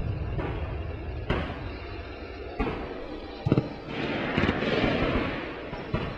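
Battlefield sound effects: a steady low rumble with sharp distant blasts of artillery and gunfire, four of them a second or more apart, and a swell of rushing noise in the middle.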